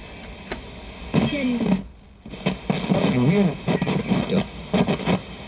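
Broadcast audio with a steady background noise bed, with short snatches of a voice and a brief drop-out about two seconds in.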